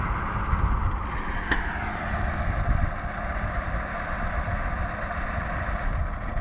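Lonking CDM835E wheel loader's diesel engine running steadily as the machine drives slowly across sand. A single sharp click about a second and a half in.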